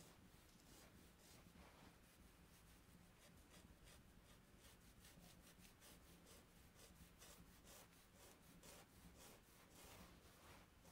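Chalk scratching across textured drawing paper in quick, repeated short strokes, faint, over a low steady room hum.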